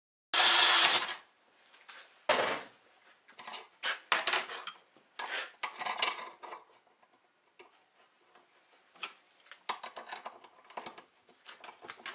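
A cordless drill runs for under a second, boring into a steel ski saddle held in a bench vise. Then come scattered metal clinks and scrapes as hand tools and a bolt are worked against the steel part.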